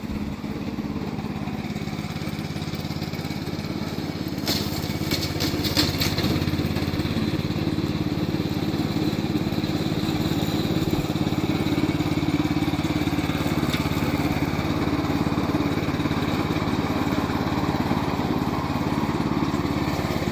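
Gasoline engine of a remote control lawn mower running steadily, with a few brief sharp crackles about four and a half to six seconds in.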